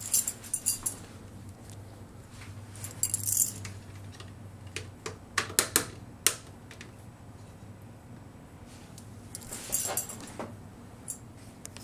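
Irregular clicks and knocks of hard plastic as a large plastic transforming-robot figure's parts and joints are handled and moved, coming in small clusters with the busiest run about five to six seconds in.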